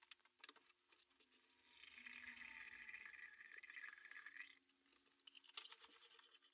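Liquid poured through a funnel into a glass round-bottom flask, a steady pour lasting about two and a half seconds, after a few light clinks of glassware.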